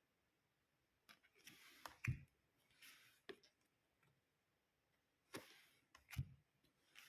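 Tarot cards being handled: a few brief soft swishes of cards sliding, scattered light clicks and taps, and two dull thumps, about two seconds in and about six seconds in, as cards are set down.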